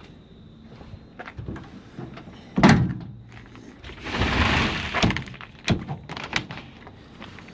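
Pickup tailgate and tonneau cover being worked by hand: a heavy thunk about two and a half seconds in, a sliding rasp about a second later, then a few sharp clicks.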